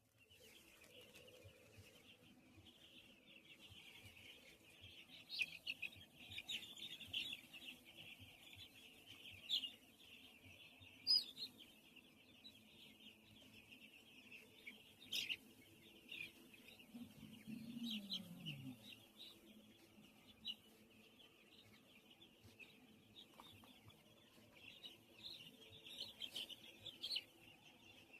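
A flock of twelve-day-old chicks peeping continuously: a dense chorus of high chirps with louder single peeps standing out now and then.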